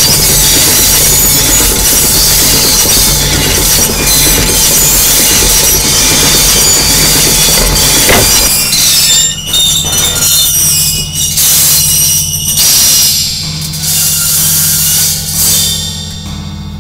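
Power electronics noise music: a dense wall of distorted noise that, about eight seconds in, thins to a low steady drone broken by stuttering bursts of noise, fading out near the end.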